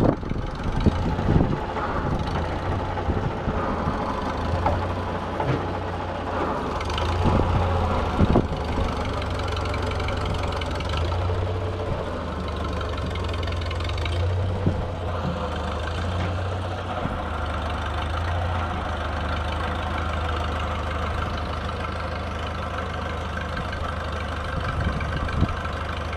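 Farmall Super A tractor's four-cylinder engine running steadily, with a few sharp knocks in the first several seconds.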